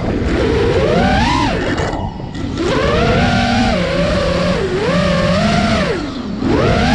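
Quadcopter's iFlight 2306 brushless motors with Gemfan 51477 props whining, the pitch rising and falling with the throttle. The pitch drops sharply twice, about two seconds in and again near the end, as the throttle is released; this is the throttle-release noise the owner is asking about.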